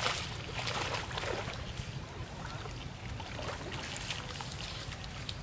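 Monkeys splashing in shallow muddy water: a loud splash right at the start, then scattered smaller splashes and sloshing.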